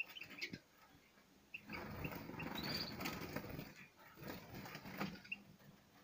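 Small caged finches giving short, high chirps here and there, with stretches of wing fluttering and rustling as birds fly about the cage, about a second and a half in and again near the end.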